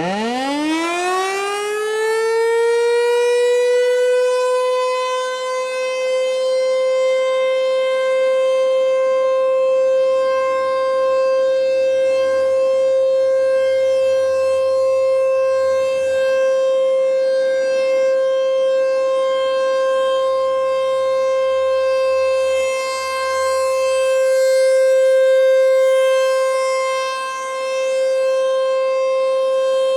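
Tornado warning siren winding up from a low pitch to full speed within about three seconds, then holding one loud, steady tone, swelling and dipping slightly near the end.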